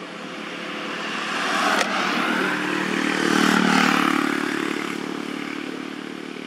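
A passing motor vehicle: its engine hum grows louder to a peak a little past the middle, then fades away. A single sharp click sounds about two seconds in.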